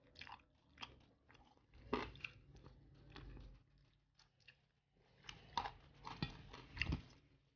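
A person chewing and biting honey-grilled chicken and rice eaten by hand, heard close up: short mouth clicks, with louder clusters about two seconds in and again between about five and seven seconds.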